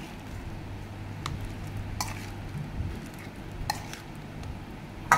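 Chicken pieces being mixed by a gloved hand in a stainless steel bowl: soft squelching and rustling, with a few light clicks against the bowl and a sharper one near the end, over a steady low hum.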